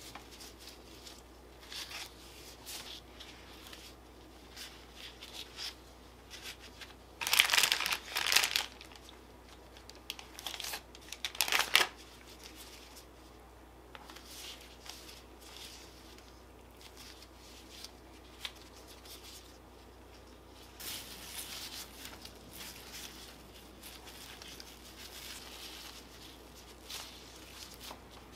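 Thin plastic crinkling in two loud bursts a few seconds apart, with softer rustling and small handling noises between them as plastic-gloved hands roll pork belly around mochi and pea shoots.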